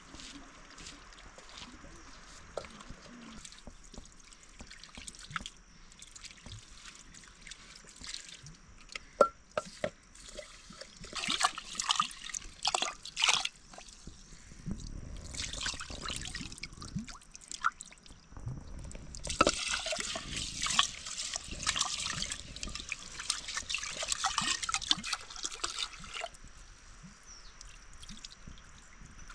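Water pouring and splashing in several bursts, among scattered knocks and clicks of kitchen handling.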